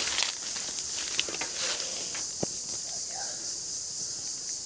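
A steady high-pitched insect drone, with a few crunches of footsteps on dry leaf litter.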